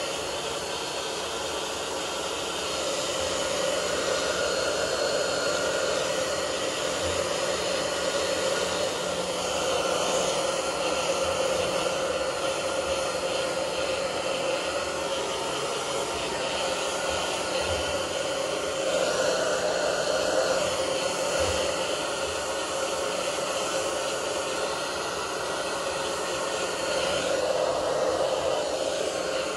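Hand-held hair dryer running steadily, blowing on a wet, freshly bathed chicken to dry its feathers; its rush of air gets a little louder a few times.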